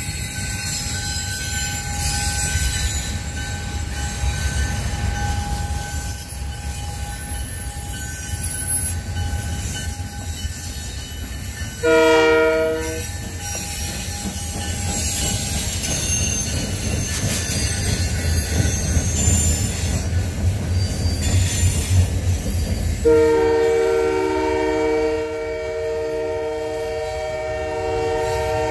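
CN freight trains running past with a steady low rumble and a thin wheel squeal in the first half. A locomotive horn gives a short multi-note blast about twelve seconds in and a long blast starting about twenty-three seconds in.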